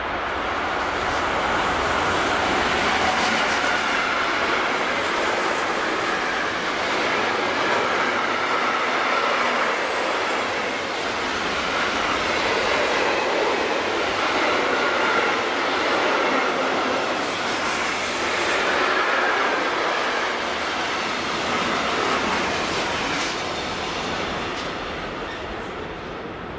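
A long freight train of tank-container wagons, hauled by a DB class 185 electric locomotive, rolls past with steady wheel and rail noise and a clickety-clack over the rail joints. Brief high-pitched wheel squeals come a few times as the wagons take the curve. The noise fades over the last few seconds as the end of the train goes by.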